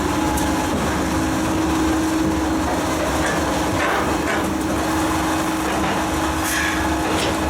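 Firewood processor running with a steady machine hum, with a few short knocks and clatters of wood scattered through it.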